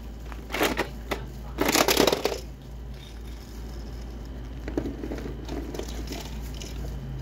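Crinkling and rustling of items being handled, in a few bursts in the first two and a half seconds, the longest about a second, then lighter knocks and shuffling.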